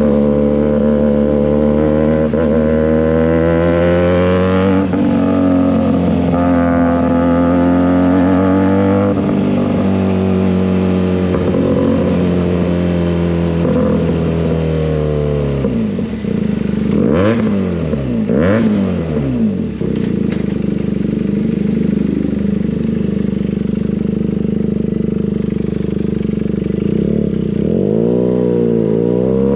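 Benelli 302S parallel-twin engine through an SC Project exhaust, holding steady revs for about fifteen seconds. The revs then drop and blip up and down several times, as in downshifting and slowing. It settles into steady running at low revs, with one more quick rev near the end.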